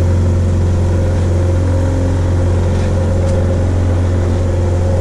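Small fishing boat's engine running steadily, an even low drone with a steady hum over it.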